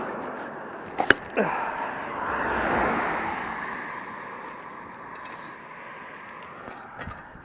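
A road vehicle passing by, its tyre and engine noise swelling and then fading away over a few seconds, with a sharp click about a second in.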